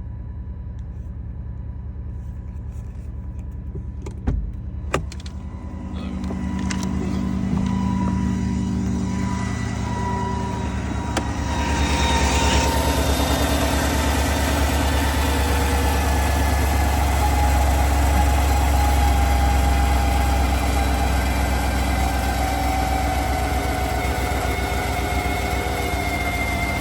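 2020 GMC Sierra 1500 pickup running, with two sharp knocks early on. A thin whine then comes in and climbs slowly in pitch as the sound grows louder, which the owner suspects is a transmission bearing.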